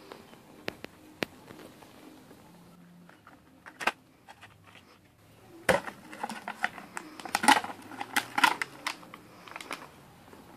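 A few sharp clicks as the plastic lid is worked off a Pringles can, then about four seconds of crackling and crinkling as the can's foil seal is peeled away.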